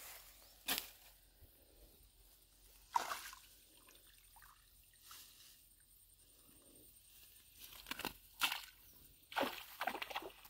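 Short splashes and sloshes in shallow water as a mesh keep net holding a caught tilapia is handled and laid in the water at the bank: two single splashes early on, then a quick cluster of them near the end.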